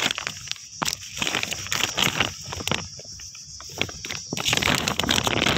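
Printed plastic bag rustling and crackling as it is handled and opened, with many irregular sharp crinkles, over a steady high drone of insects.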